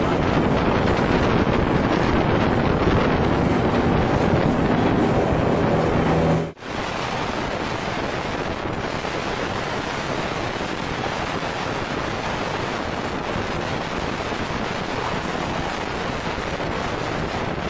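Wind buffeting the microphone over the rush of water and the steady drone of a motorboat's engine as the boat runs at speed. About six and a half seconds in, the sound cuts abruptly and resumes as a slightly quieter, steady rush of wind and water.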